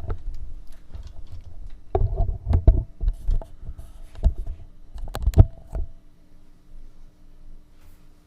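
A handful of dull, irregular thumps and knocks in the first six seconds, over the steady low hum of an idling tube amplifier, the 1949 Gibson BR-9.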